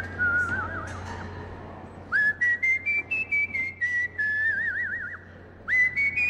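A whistled tune: quick notes stepping up and then down, each with a light click at its start, in two phrases that each end on a wavering held note, the second dying away about five seconds in before a new phrase begins.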